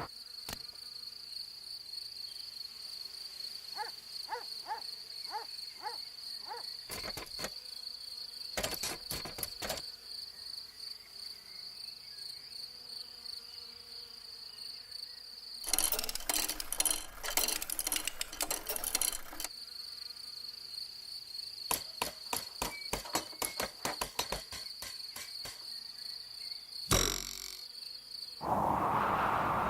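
Cartoon insect sound effects. A steady, high-pitched insect trill runs through most of the stretch. Over it come a quick run of short pitched chirps about four seconds in, bursts of rapid clicking and rattling, and a single loud thump near the end.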